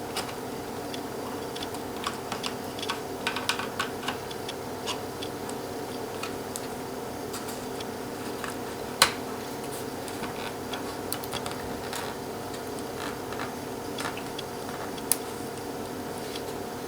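Scattered light clicks and taps from handling the inside of a Dell Inspiron N4110 laptop as its motherboard is worked loose, with two sharper clicks about nine and fifteen seconds in. A steady low hum runs underneath.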